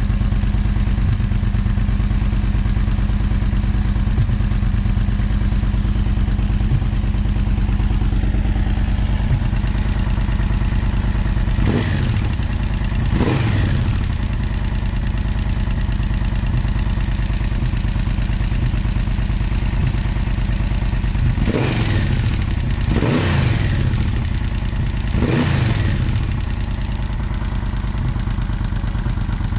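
Yamaha V-Max 1200's V4 engine idling with a rattle, its throttle blipped briefly five times, twice around the middle and three times later. The rattle is an unexplained noise that the owner is asking for help with.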